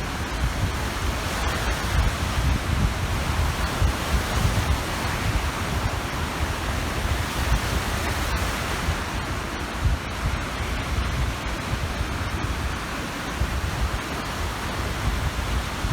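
Waves washing onto the shore of a large reservoir, a steady rushing of water, with wind rumbling on the microphone.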